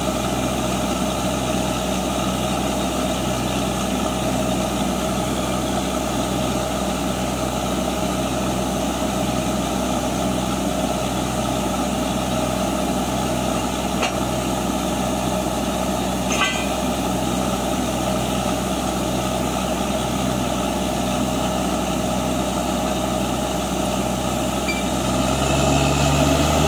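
Truck-mounted borewell drilling rig's diesel engine running steadily with a regular pulsing throb, speeding up and getting louder near the end. A couple of sharp metallic clicks about two-thirds through.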